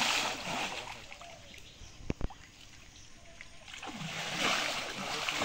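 Pond water splashing and sloshing as men wade and haul a drag net through it, in two surges: one at the start and a louder one from about four seconds in. Two short knocks come about two seconds in.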